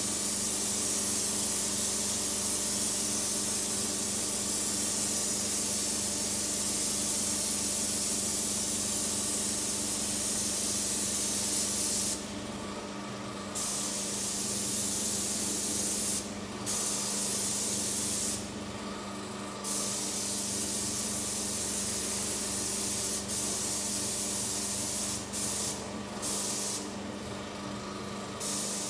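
Paint spray gun hissing as it sprays paint onto a wall, with the trigger let off for a moment several times in the second half. Under it is a steady low hum.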